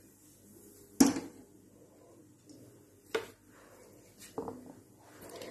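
Three sharp knocks of kitchenware, the first and loudest about a second in, the others near three and four and a half seconds, each with a short ring.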